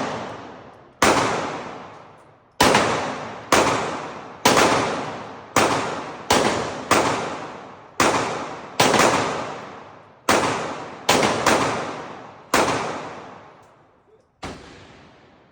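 Semi-automatic handgun fired about fifteen times in uneven succession, the shots from under half a second to a second and a half apart. Each shot is a sharp crack followed by a long echoing decay.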